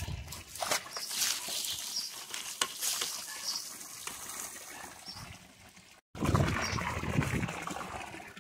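Water splashing and spattering onto a water buffalo's hide as it is washed down, uneven throughout, with a brief break about six seconds in followed by louder splashing.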